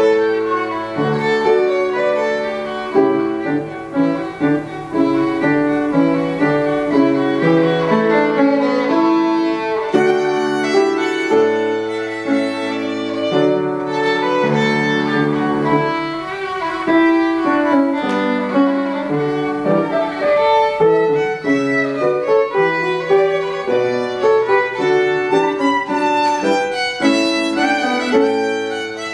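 Violin playing a solo piece with piano accompaniment.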